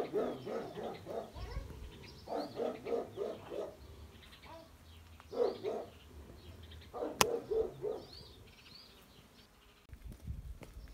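A dog barking in several quick runs of yaps, with a single sharp knock about seven seconds in.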